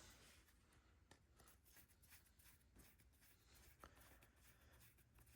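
Near silence: room tone with scattered faint light clicks and taps of small carburetor parts being handled.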